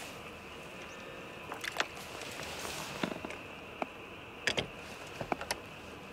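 Night insects chirring in a steady high chorus, with a few short sharp clicks scattered through.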